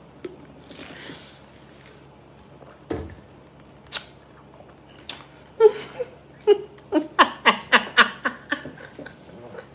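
A woman laughing: a quiet, breathy start with a couple of light taps, then from about halfway through a quick run of short laughs, about three a second.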